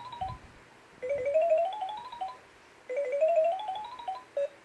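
LeapFrog Chat & Count toy phone playing a button sound effect: a quick electronic run of short beeps climbing step by step in pitch. The run plays twice, and a single short beep sounds near the end.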